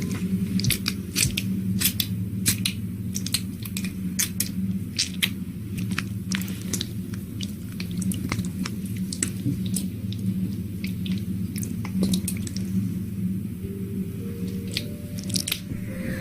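Close-miked wet, sticky clicks and squishes, irregular and many, typical of ASMR trigger sounds. A steady low drone runs beneath them.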